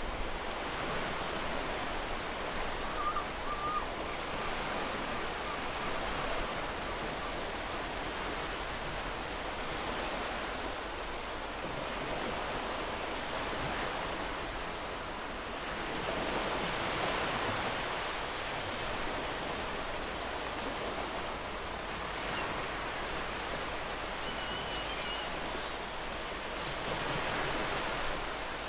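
Ocean surf breaking and washing onto the shore, a steady rush that swells a little just past midway and again near the end. Two faint, brief chirps sit under it.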